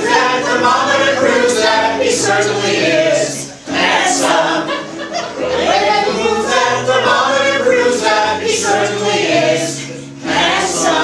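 Cast of a stage musical singing together in chorus over held bass notes of an instrumental accompaniment.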